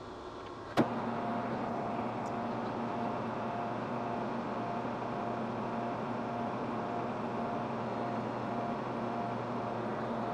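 Metal lathe switched on with a sharp click about a second in, then running steadily: a motor hum with a higher whine that pulses about twice a second.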